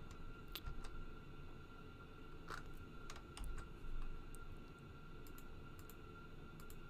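Scattered computer mouse clicks, a few sharp single clicks several seconds apart, over a faint steady hum.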